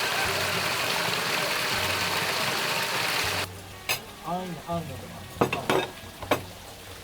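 A dense, steady hiss like rain or frying that cuts off suddenly about halfway through, followed by a few short chirps and light clicks and clinks.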